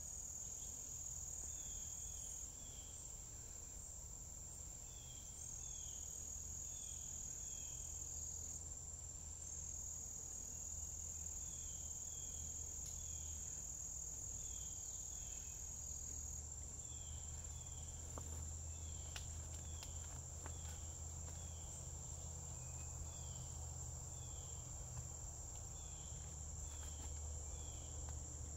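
Insects trilling: a high, steady trill that breaks off and starts again a few times, then carries on unbroken. Short chirps repeat in twos and threes beneath it, over a low rumble.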